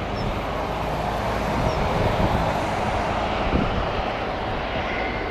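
Gulfstream G550 business jet's twin Rolls-Royce BR710 turbofans at take-off power during the take-off roll: a steady jet noise. A faint whine rises slowly in pitch near the end.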